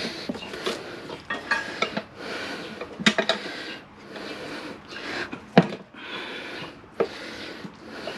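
Metal tire levers clinking and scraping against a motorcycle wheel rim while prying a tire bead onto it, with scattered sharp clanks; the loudest comes a little past halfway.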